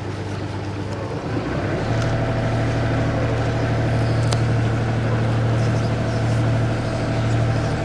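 Motor of an open canal tour boat running steadily with a low hum, getting louder about a second and a half in as the boat moves on.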